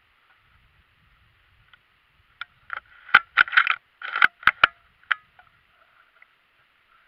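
Close handling noise from a scoped rifle with a camera mounted on it: a quick run of about eight sharp clicks and scrapes over roughly three seconds, starting about two and a half seconds in. A faint steady hiss lies under it.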